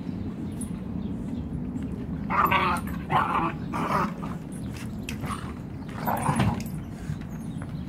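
Adult dogs growling low and steadily as they correct a puppy, with four short, louder dog cries: three in quick succession from about two and a half seconds in, and one more about six seconds in.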